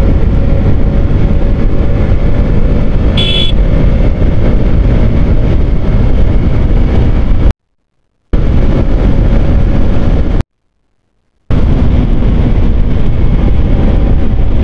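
Yamaha R15 V3's single-cylinder engine running at highway speed in sixth gear under heavy wind rush on the microphone, with a brief high-pitched tone about three seconds in. The sound cuts out completely twice, for under a second and then for about a second.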